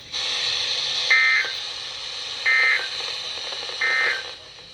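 Emergency Alert System end-of-message (EOM) code: three short warbling digital data bursts about a second apart over a steady hiss. The bursts signal that the alert has ended.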